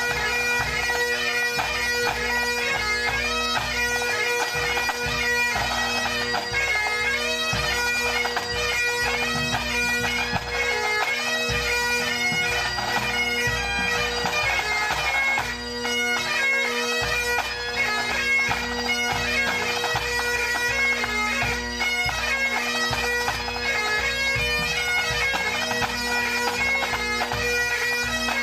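Pipe band playing: Great Highland bagpipes sounding a melody over their steady drone, with snare, tenor and bass drums beating along.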